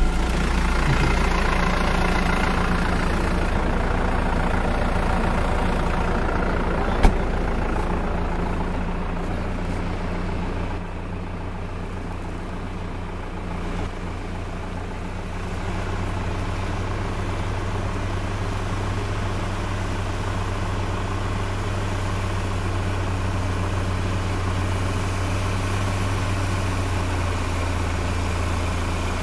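Fiat 880 tractor's diesel engine running steadily as it pulls a plough, a low even drone. A sharp click about seven seconds in; the engine sound drops somewhat about eleven seconds in and then holds steady.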